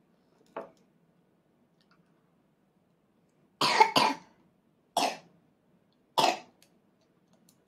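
A person coughing in short, sharp bursts from about three and a half seconds in: a double cough, then two single coughs about a second apart.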